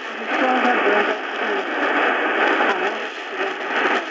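Prunus J-150 BTS portable radio's speaker playing a shortwave broadcast: a voice coming through steady static and hiss, with a thin, narrow sound.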